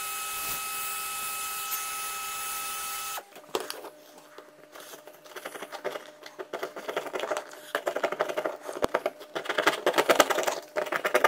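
Small screwdriver scraping and picking softened glue out of a plastic battery-pack case: quick scratching clicks that grow denser and louder toward the end. Before it, a steady hiss with a few held tones cuts off abruptly about three seconds in.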